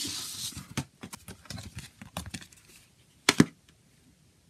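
A CD and a cardboard digipak being handled: a papery scraping as the disc goes into the sleeve, then a run of light clicks and taps, and a sharp double knock about three seconds in as the closed case comes down on the table.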